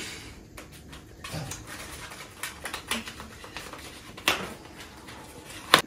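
Scattered light clicks and rustling from a new mountain bike being handled, with two sharper knocks, one about four seconds in and a louder one near the end.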